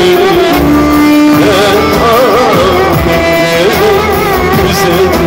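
Live Turkish folk-style music played loud through PA speakers: a violin carries a wavering, ornamented melody over an electronic keyboard's held notes and rhythm.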